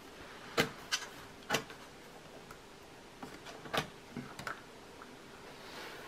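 USB cable plugs being pulled out of the rear ports of an iMac, a series of sharp plastic clicks and knocks, four louder ones and several fainter ones, as the plugs come free and the cables knock about.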